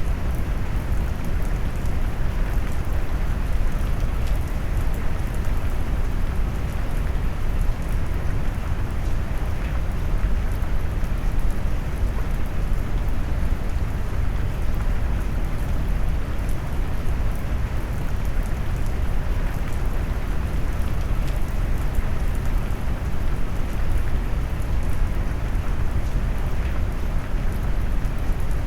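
Steady heavy rain noise mixed with deep brown noise, dark and low-weighted with little high end, constant without breaks or distinct events.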